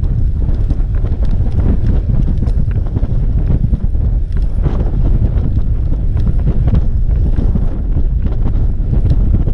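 Wind buffeting the microphone of a camera on a road bike riding at speed: a loud, steady low rush with constant small gusts.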